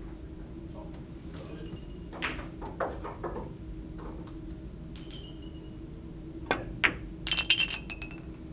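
Billiard balls clicking together on the table: scattered single hard knocks, some with a short ring, then a quick run of clicks near the end, over a steady faint hum.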